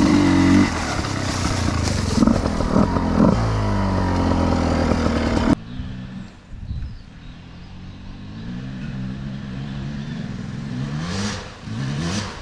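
Enduro motorcycle engine revving up and down, loud and close. About five and a half seconds in the sound cuts abruptly to a quieter, duller engine that keeps rising and falling in pitch.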